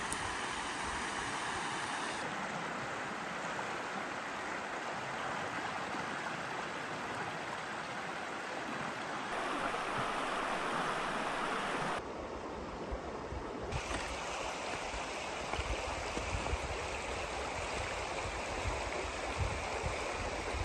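Shallow creek rushing over shale ledges and stones: a steady rush of flowing water whose tone shifts abruptly a few times.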